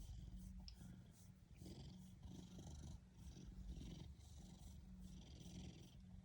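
A Ragdoll cat purring: a faint, steady low rumble that swells and eases every second or so with its breathing.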